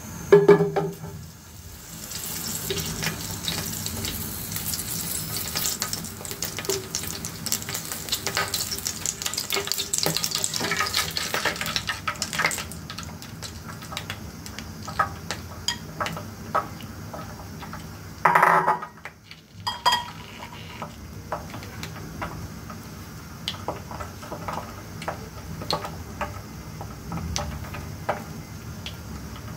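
Hot oil sizzling and crackling in a non-stick frying pan, then eggs frying in it with scattered pops. A knock of the pan comes just after the start, and a short louder noise comes about two-thirds through.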